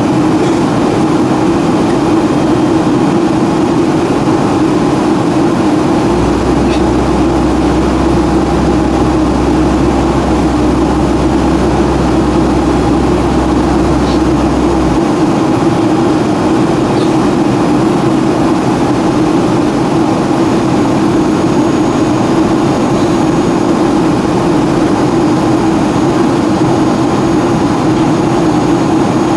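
Steady cabin noise inside a Boeing 757-200 in flight: a loud, even rush of airflow and jet engines. A deeper low hum comes in about six seconds in and drops out about nine seconds later.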